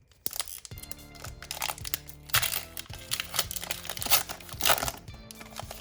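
Foil trading-card booster pack wrapper crinkling and tearing in several sharp crackles as it is handled and opened, over background music with sustained notes.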